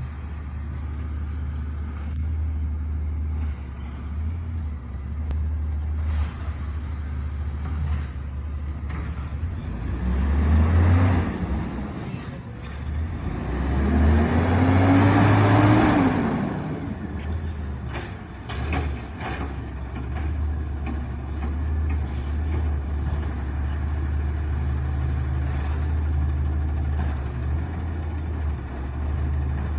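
Recycling garbage truck's diesel engine running steadily, revving up and back down twice near the middle, with short air-brake hisses.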